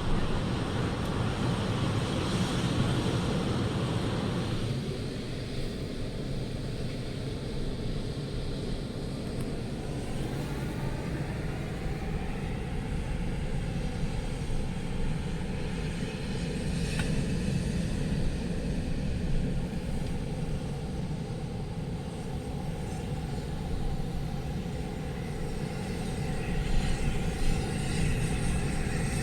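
A steady low rumble, brighter and hissier for the first four seconds, with a faint engine-like hum running through it from about five seconds in.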